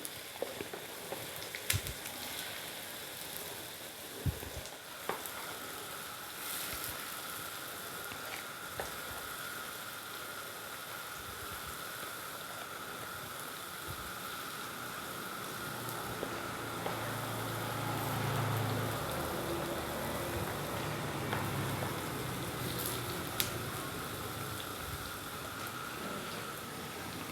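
Rice-flour batter sizzling softly in hot ghee in the hollows of a kuzhi paniyaram pan on the stove, a steady frying hiss with a few small clicks.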